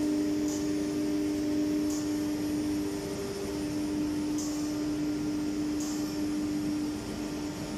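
Spindle of an iGoldenCNC iG6-1325 ATC CNC router running at a steady pitch as it machines a board, over the rushing noise of dust extraction. A second, higher tone fades out about three and a half seconds in.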